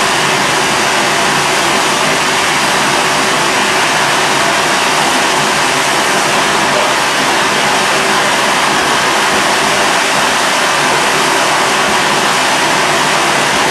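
Firework fountain spraying sparks with a loud, steady hiss.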